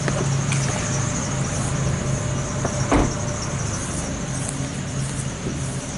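Car engine and road noise heard from inside a slowly moving car, a steady low hum, with a single thump about three seconds in.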